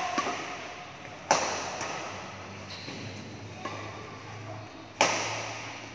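Badminton rackets striking the shuttlecock in a rally: two sharp hits, about a second in and near the end, each ringing on in the hall's echo.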